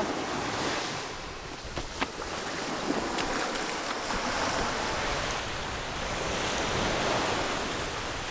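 Surf breaking and washing up a beach in quite a swell, a steady rushing wash, with a few short knocks about two and three seconds in.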